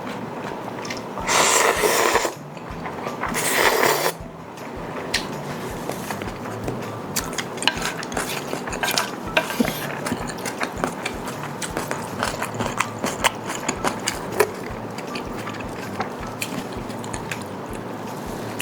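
Eating sounds: two loud slurps about a second long each near the start, then chewing with many small clicks and taps of utensils against a bowl.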